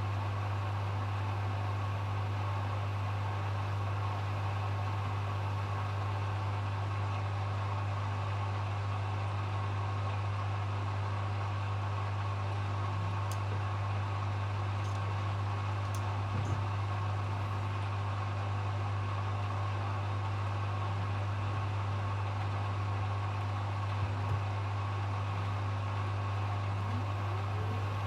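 Hoover HW411AMC washing machine on its final spin, the drum turning at a steady high speed with a constant low hum and motor whine, and a few faint ticks.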